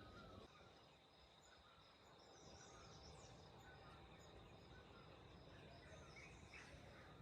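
Near silence: faint outdoor morning ambience with a few faint, distant bird chirps and a thin steady high whine.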